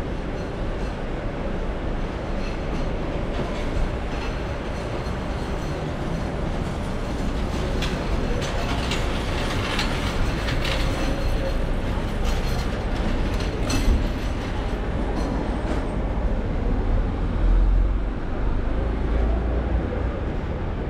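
Steady outdoor rumble of road traffic and vehicle engines, with a few brief sharp clacks near the middle.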